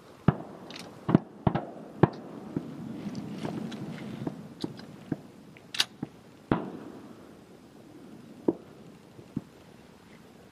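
Shotgun fire at passing teal: about a dozen sharp reports at uneven intervals over ten seconds, several close together in the first two seconds and fainter, more spaced shots later, one with a short echo.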